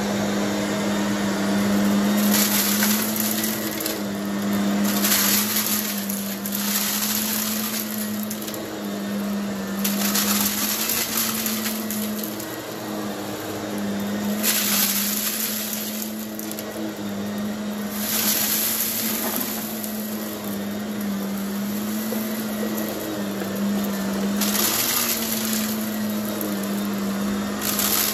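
Vacuum cleaner running with a steady motor hum, with a burst of crunchy, hissing noise every few seconds as it picks up debris.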